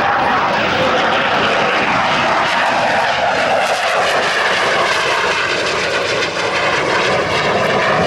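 Jet noise of a CF-18 Hornet's twin F404 turbofan engines as it flies past, a loud rushing sound whose pitch falls steadily over the first several seconds as it goes by. It cuts off suddenly at the very end.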